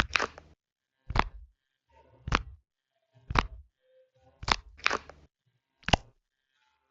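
Nee Doh squishy stress toy being squeezed close to the microphone: about seven short, sharp squishes roughly a second apart.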